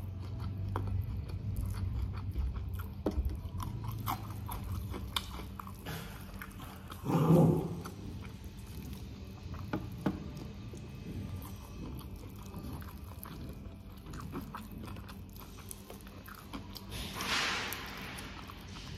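Close-miked eating: steady chewing and crunching of crunchy food. There is a louder burst of sound about seven seconds in and a short hissing noise near the end.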